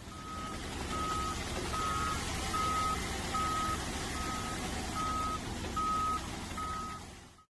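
Vehicle reversing alarm beeping steadily, nine even beeps a little under a second apart, over the low rumble of a running engine.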